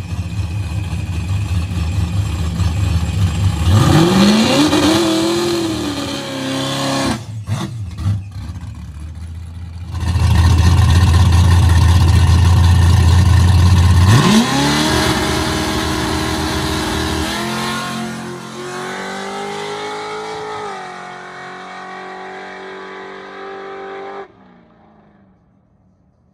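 Drag-racing cars on a drag strip: heavy engine rumble at the start line with a short rev about four seconds in. About fourteen seconds in, a car launches hard, its engine pitch climbing through two gear changes before fading away down the track.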